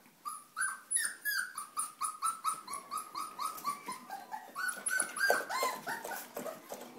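Young Australian Shepherd puppy yelping in a quick, regular series of short high cries, about three a second, dipping lower in pitch around the middle.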